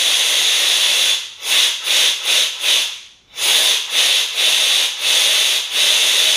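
Compressed air and lacquer thinner hissing loudly from an air-hose siphon spray gun blown into the oil galleries of a Ford FE V8 engine block, flushing crud out of the gallery and bearing holes. There is one long blast, then a run of short blasts about three a second, with a brief stop near the middle.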